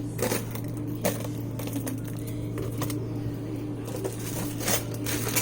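Food containers being set down on refrigerator shelves: a few light clunks and taps, spaced about a second apart, over a steady low hum.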